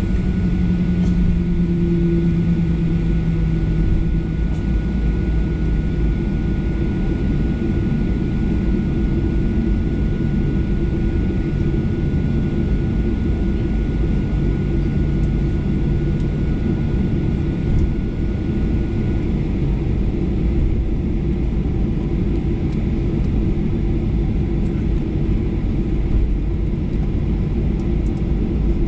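Cabin noise of a Boeing 737-800 taxiing, heard from a window seat: its CFM56 engines running at idle and a loud, steady low rumble, with a faint high steady tone that stops about two-thirds of the way through.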